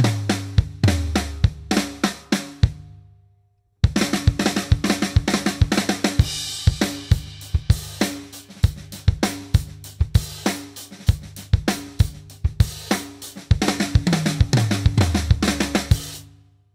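Acoustic drum kit: a fill of flams played around the toms, left to ring out about three seconds in. After a short gap, a groove on snare, bass drum, hi-hat and cymbals with the flam fill played into it, stopping just before the end.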